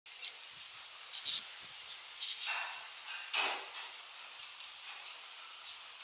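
Steady hiss with several short rustles of palm fronds as a weaver bird tugs and weaves at them; the loudest rustle comes about three and a half seconds in.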